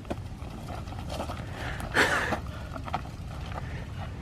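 Mountain bike ridden on a trail, heard close up: low rumble with small clicks and rattles, and a brief squeal about two seconds in.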